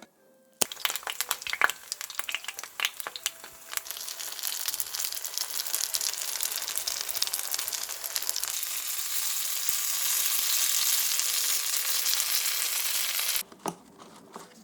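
Dumplings sizzling in hot oil in a frying pan. The crackle grows into a loud, steady sizzle that cuts off suddenly near the end.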